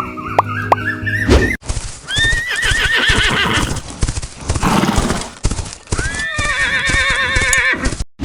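A horse whinnying twice, each a wavering high call of about two seconds, over quick clip-clopping hoofbeats. Music plays for the first second and a half.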